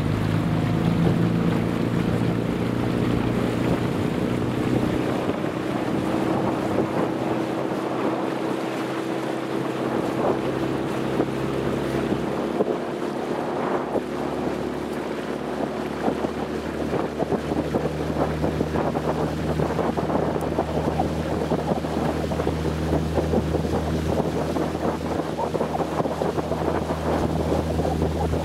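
Motor launch's engine running steadily under way, with water rushing past the hull and wind buffeting the microphone. The engine note changes about twelve seconds in.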